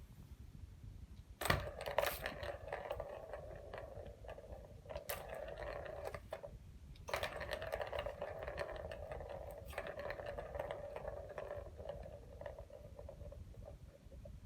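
A ball spinning round in a cat toy, rolling and rattling steadily in two long spells. The first starts with a sharp clack, and the second follows a brief pause about halfway through.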